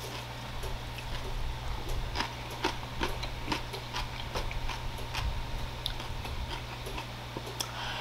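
Close-miked chewing and eating: irregular wet mouth clicks and smacks, a few a second, over a steady low hum.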